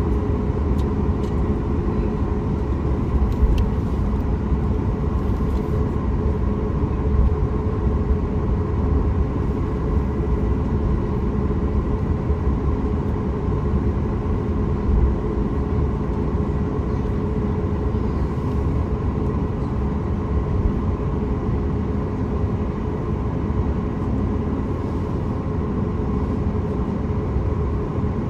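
Cabin noise of a Boeing 737 MAX 8 taxiing with its CFM LEAP-1B engines at low thrust: a steady low rumble with an even hum of several tones, and a few slight bumps.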